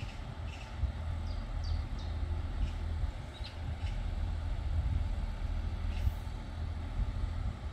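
Diesel engine of a Pacer railbus running steadily with a deep rumble.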